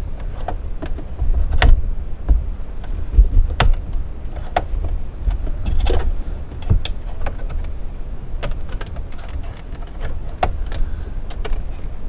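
Scattered small clicks and taps of hands working the thread guides and plastic parts of a Brother sewing machine while threading it, over low bumps of handling.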